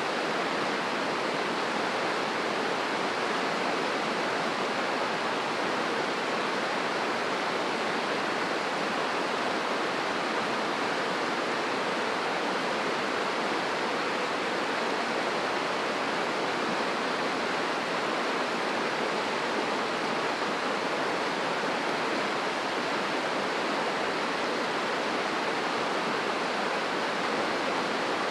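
A fast-flowing river rushing steadily, a constant dense roar of moving water with no breaks.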